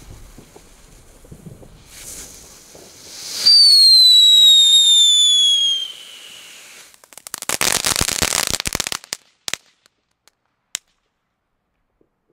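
Lesli Ooh La La's category 1 ground firework going off: a faint fizz of sparks, then a loud whistle falling slowly in pitch for about two and a half seconds. About two seconds of dense crackling follow, then a few last single pops.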